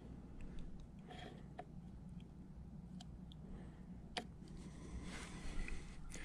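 Faint scattered clicks and light handling noise from metal tools being handled, over a low steady hum.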